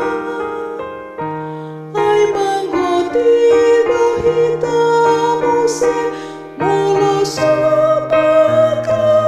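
Choir practice track for a tenor part: keyboard chords held under a single sung melody line that slides between notes. The line drops away about a second in, and new phrases start at about two seconds and again past six seconds.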